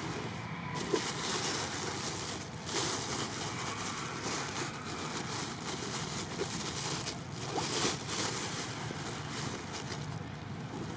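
Wind rushing over the microphone, a steady hiss that swells in stronger gusts about a second in, around three seconds and just before eight seconds.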